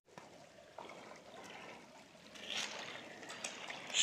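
Shallow stream water trickling over and around rocks, a soft steady running-water sound that swells slightly about two and a half seconds in.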